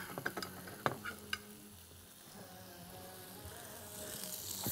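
Metal tongs clicking against a glass dish several times as marinated asparagus is lifted out. A faint sizzle of a hot pan then rises toward the end.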